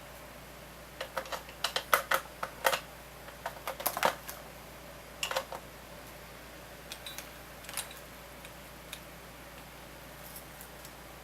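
Irregular light clicks and taps of small hand tools and parts being handled at a workbench: a quick cluster in the first half, then a few scattered ticks.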